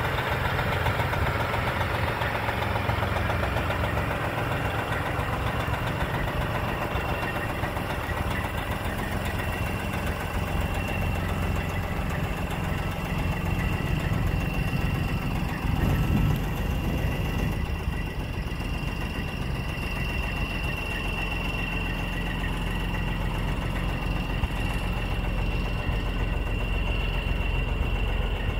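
Diesel engine of a 1999 Sterling A9522 flatbed truck idling steadily, with a thin steady high whine over the low rumble.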